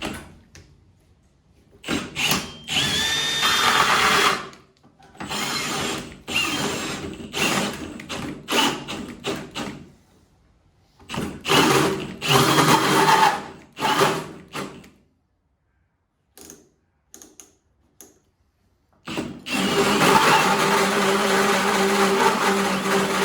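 Power drill driving a 3-inch hole saw through a cut, run in several short bursts with pauses between them, then held steadily near the end.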